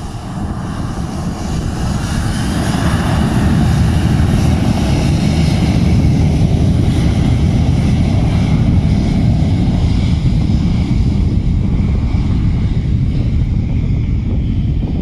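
Boeing 737's twin turbofan engines running loud as the airliner rolls along the runway. The sound builds over the first few seconds and then holds steady, with wind buffeting the microphone.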